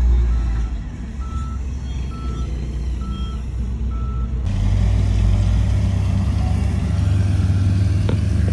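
Heavy diesel earthmoving machinery running, with a reversing alarm beeping about every 0.8 seconds, five beeps in all. About halfway through the beeping stops and the sound changes abruptly to a steady, deeper engine drone.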